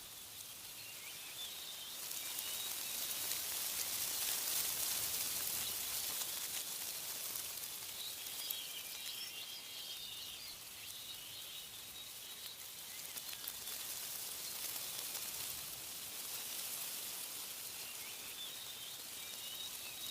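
Wind rustling through tree leaves, swelling for a few seconds and then easing, with small birds chirping faintly now and then.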